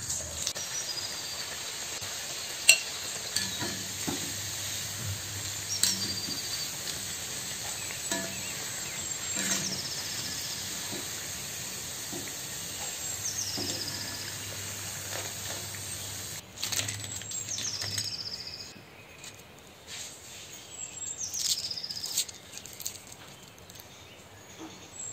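Semolina batter deep-frying in hot oil in an iron kadai: a steady sizzle broken by sharp clicks of metal against the pan. The sizzle drops away a few seconds before the end.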